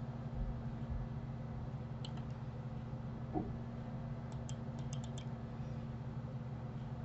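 Computer mouse button clicks: a couple of clicks about two seconds in, then a quick run of about five clicks a little past halfway, over a steady low hum.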